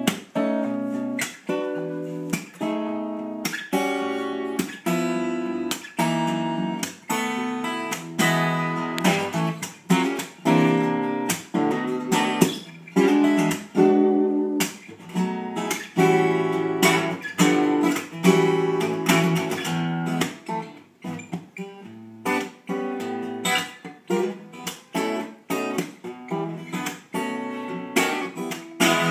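A 2001 Taylor 810 dreadnought acoustic guitar, strummed in chords. The strums come about one or two a second and ring between strokes as the chords change.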